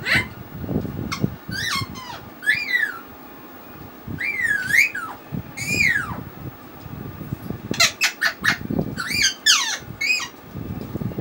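A bird calling repeatedly in the background, with short whistled calls that slide up and down, coming in groups. Underneath are soft, wet squelching sounds of rice and fish curry being mixed by hand on a plate.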